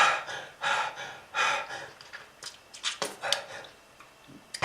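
A person gasping and panting for breath: three heavy breaths about 0.7 s apart, then a few short catches, a pause, and another breath near the end. The laboured breathing is presented as a sign of smoking-related lung disease.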